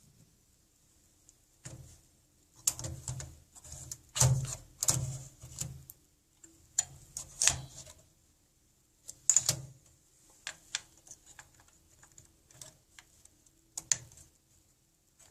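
A hard drive on mounting rails being fitted into a small desktop computer's drive bay: irregular clicks and knocks of plastic and metal in short clusters, the loudest about four seconds in.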